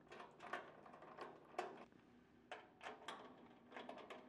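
Faint, irregular clicks and ticks of a hand nut driver turning screws into a pellet grill's metal hopper housing, about two a second.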